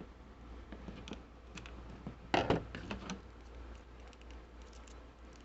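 Light plastic clicks and rattles from handling a plastic action figure and a nylon zip tie threaded through its hips, with a short louder run of clicks about two and a half seconds in.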